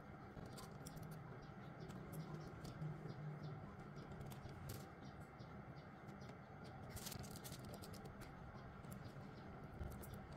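Faint crinkling and small scratchy clicks from a plastic piping bag being squeezed to pipe butter cookie dough, over a low steady hum. The clicks come in small clusters, thickest a little before halfway and again around two-thirds of the way through.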